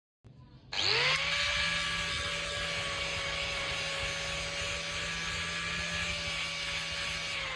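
Electric angle grinder switched on: its whine rises quickly to full speed about a second in, then it runs steadily at high speed.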